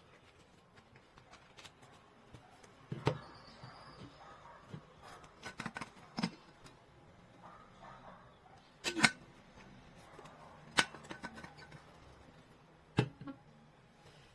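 Handling noises: five sharp knocks, one every two to three seconds, with quieter clicks and light rustling between them.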